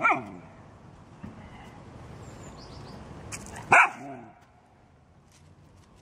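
A dog barking twice: a short bark right at the start and a louder single bark a little under four seconds in.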